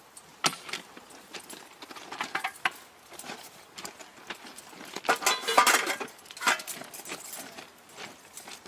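Irregular metallic clinks and knocks, with a louder cluster of clanks that ring briefly about five to six seconds in.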